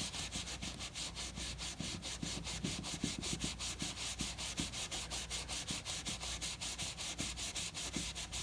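Steady rubbing over a beaver-tail leather skin in quick, even back-and-forth strokes, buffing off excess leather balm and polishing the surface after conditioning.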